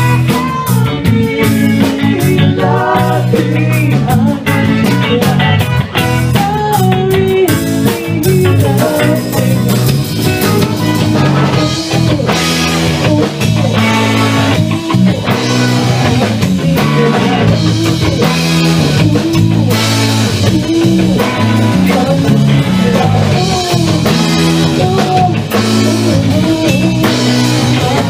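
Live ska band playing loudly: electric guitar over bass and a drum kit.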